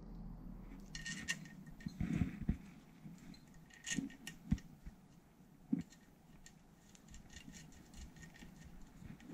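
Hands fitting wire connectors onto the terminals of a motorcycle alternator: scattered small clicks and taps of metal and plastic, with a few louder knocks.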